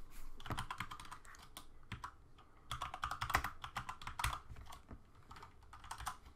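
Typing on a computer keyboard: runs of quick key clicks with short pauses between them.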